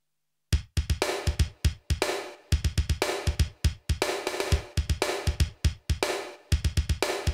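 Music: a drum pattern starts about half a second in, a run of sharp drum and cymbal hits in a broken rhythm.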